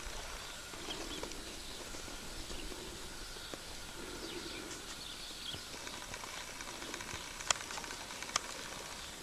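Quiet outdoor background noise with two sharp clicks near the end, about a second apart.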